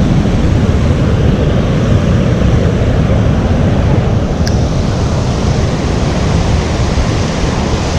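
Steady rush of fast river water running over rocks below a dam spillway, mixed with wind buffeting the microphone.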